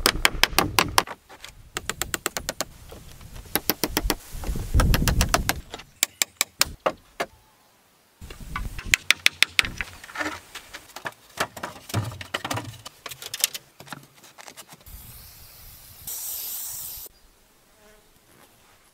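Woodworking knocks: a quick run of hatchet strokes biting into a log, then more groups of wooden knocks and clatter as peeled poles are handled and laid. About fifteen seconds in comes a high hissing rasp lasting a couple of seconds.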